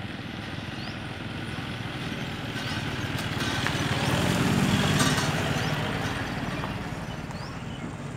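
Pickup truck driving past close by on a dirt road: its engine and tyre noise swells to a peak about halfway through, then fades. Short rising bird chirps recur every couple of seconds.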